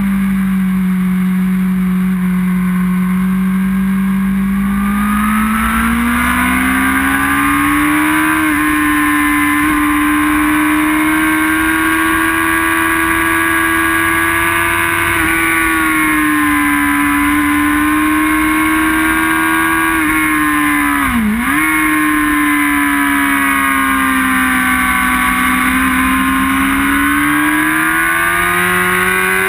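Sport motorcycle's inline-four engine heard from on board at high revs on a race track. Its pitch climbs after about five seconds and then holds high, with a brief sharp dip and recovery about two-thirds of the way through. A steady rush of air noise runs underneath.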